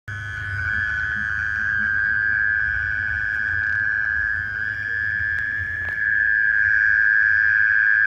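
A night insect singing one unbroken, steady high trill that grows louder about six seconds in.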